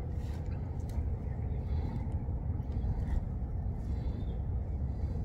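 Steady low rumble of wind buffeting the microphone outdoors, with a few faint ticks and taps from handling a freshly caught crappie.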